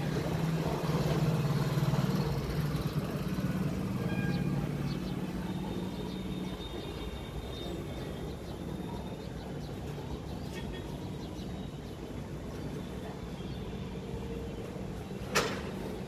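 A motor vehicle going by on the street, its low engine hum loudest in the first couple of seconds and fading away by about six seconds in, over steady street background. A single sharp click near the end.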